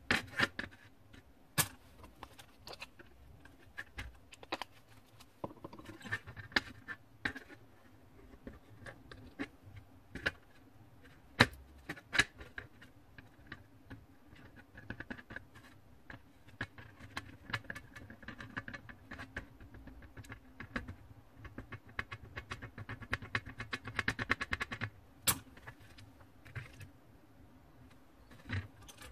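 Sharp metallic clicks and taps as the soft-soldered pendant and soldering iron are handled against a metal tray. For several seconds past the middle there is a dense run of rapid small clicks and crackle.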